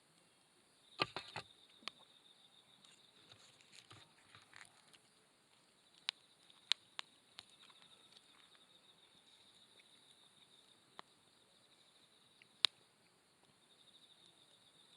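Wood campfire crackling, with sharp irregular pops, a cluster of them about a second in, over a steady high trill of insects.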